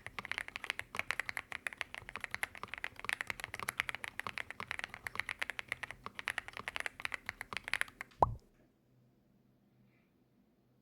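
Fast, continuous typing on a Monka A75 aluminium-bodied mechanical keyboard with stock Snow Leopard linear switches, a dense run of keystroke clacks. It stops about eight seconds in with one short, loud tone sliding down in pitch, after which it is nearly silent.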